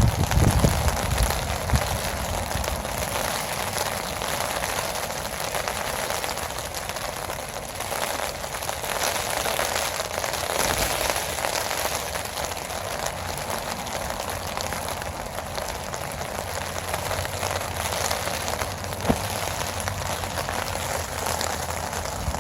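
Steady heavy rain falling, an even rushing hiss throughout. A loud low rumble comes right at the start, and there is one sharp tap near the end.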